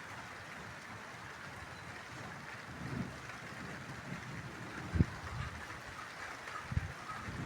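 Light rain falling with a steady hiss, broken by a few low thuds, the sharpest and loudest about five seconds in.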